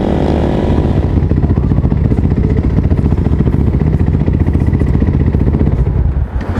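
Supermoto motorcycle's engine running at low revs under the rider, its rapid firing pulses plainly heard. The sound dips briefly near the end.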